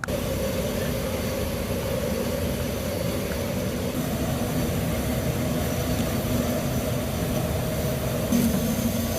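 Military transport aircraft engines running with a loud, steady drone and a hum that grows stronger near the end.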